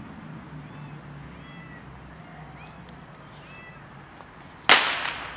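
A tabby cat meowing over and over in short, faint, high-pitched calls. Near the end comes a sudden loud bang with a brief ringing tail, the loudest sound here.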